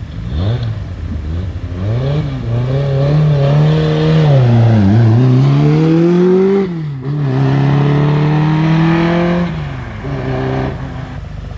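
A classic race car's engine revving hard as it launches from the start line and accelerates away. Its pitch climbs through the gears with a short dip at each gear change, roughly every two to three seconds. The engine note drops and fades near the end as the car pulls away.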